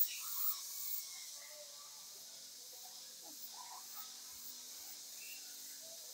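Quiet outdoor background: a steady high hiss with a few faint, scattered small sounds and chirps.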